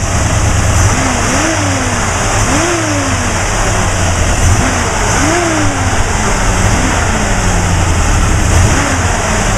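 350 cubic-inch Chevy small-block V8 running and revved several times. Each rev rises quickly in pitch and sinks back slowly to idle.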